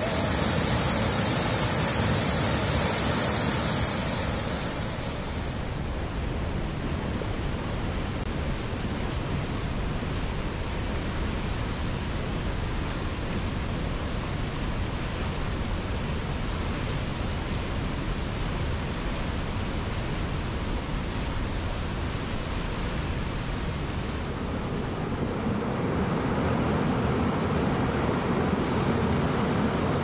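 Rushing water of a waterfall and rapids: a steady, even roar. The high hiss drops away abruptly about six seconds in, and the roar turns deeper and a little louder from about twenty-five seconds in.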